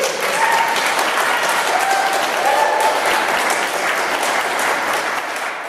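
Audience applauding, a dense patter of clapping, with a few voices calling out over it in the first few seconds; the clapping starts to die away near the end.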